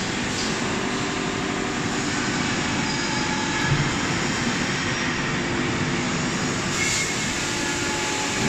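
Steady, even whir and hum of a hydraulic die-cutting press running, with a short low thump a little before the middle.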